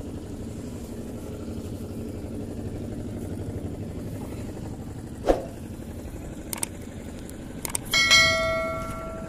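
A steady low engine hum, with a sharp knock about five seconds in. Near the end, a metal object is struck and rings out with a clear bell-like tone that fades over about a second.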